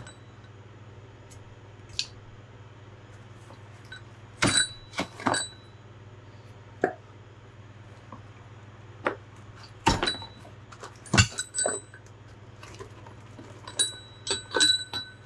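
Metal clinking and tapping as engine valves and small steel valve parts are handled and set down while being removed from a Ford 400 cylinder head. Scattered sharp clinks, a few ringing briefly, with the loudest pair about ten and eleven seconds in, over a steady low hum.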